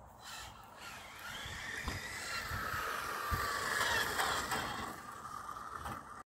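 Arrma Infraction V2 6S RC car's electric motor and drivetrain whining as it drives past on wet tarmac, with tyre hiss; the whine rises in pitch, is loudest about four seconds in, then falls away. The sound cuts off suddenly near the end.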